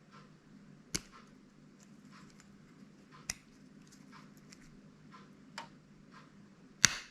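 Fishing pliers cutting through steel fishing hooks: four sharp metallic snaps, the last one the loudest, with fainter clicks between.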